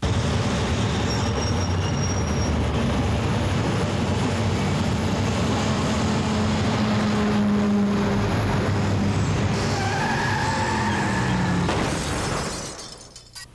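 Heavy interstate traffic passing: cars and trucks with a dense, steady rush of tyre and engine noise, and a rising whine from a passing vehicle about ten seconds in. The traffic noise fades out near the end.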